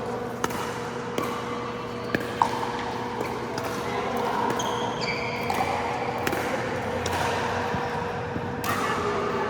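Pickleball play: sharp pops of paddles striking the plastic ball, four of them in the first two and a half seconds, over a steady hum and distant voices, with a brief high squeak about halfway through.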